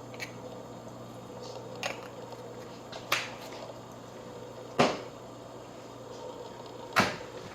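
Four sharp clicks and knocks of kitchen containers and utensils being handled while seasoning a pot, spaced a second or two apart, over a steady faint hum.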